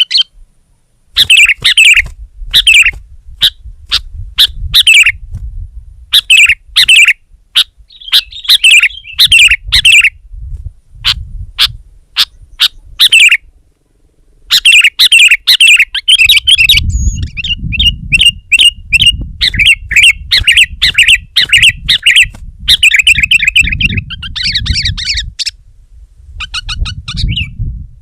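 Sooty-headed bulbul calling loudly in phrases of sharp chirps with short pauses between them. In the second half the calls turn into a fast, continuous run of chattering notes over a low rumble.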